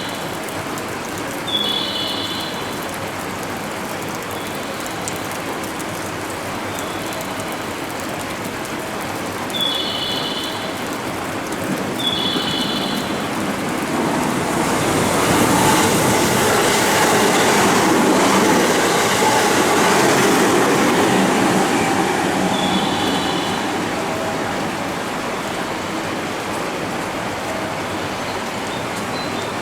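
Electric commuter train on the JR Kyoto Line moving through the station. Its rolling noise builds to a peak about halfway through, then eases off. Short high-pitched tones sound now and then in the background.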